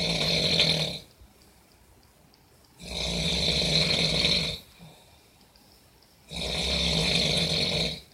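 Loud snoring: three long snores, each lasting one and a half to two seconds, spaced about three and a half seconds apart, the first already under way as the sound begins.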